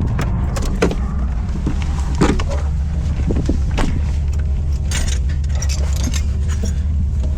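Steady low vehicle rumble with scattered light clicks and rattles over it.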